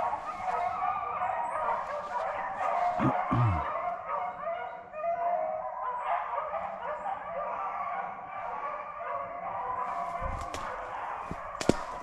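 A pack of beagles baying and howling together on a rabbit's trail, many voices overlapping in a continuous chorus: the sign that the hounds are running the rabbit. A single sharp click is heard near the end.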